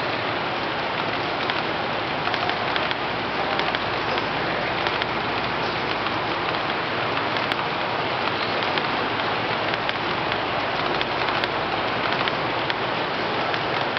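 Large-scale garden railway model freight train rolling past, its wheels making a steady, dense clatter on the track.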